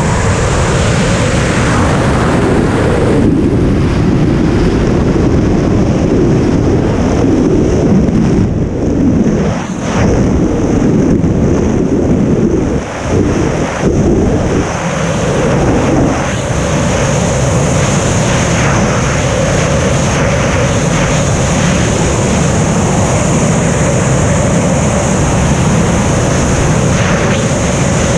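Freefall wind rushing and buffeting over a helmet-mounted camera's microphone, a loud steady roar. A thin high whistle joins it about halfway through.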